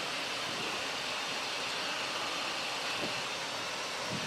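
Steady cockpit noise of a Cessna Citation XLS in its climb: an even rush of airflow and twin turbofan engines, with a steady high tone running through it.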